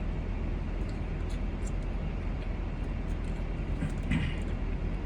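Steady low rumble of a car idling, heard from inside the cabin, with a few faint mouth clicks from chewing in the first couple of seconds.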